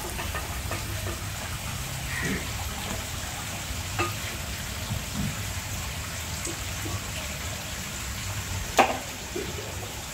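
Sacred homam fire crackling and sizzling with a steady hiss, with sharp pops about 4 seconds in and, loudest, near the end.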